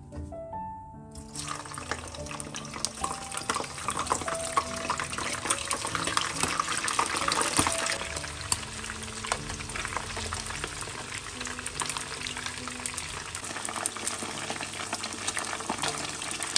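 Pre-boiled chicken pieces frying in hot oil in a wok, a dense sizzling and crackling that starts suddenly about a second in and is loudest midway. Soft background music plays underneath.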